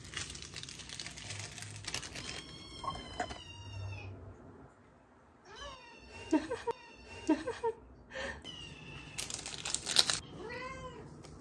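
A domestic cat meowing several times, some calls short and some long and gliding, begging in expectation of being given food. Two stretches of rustling noise come near the start and about nine seconds in, the second the loudest moment.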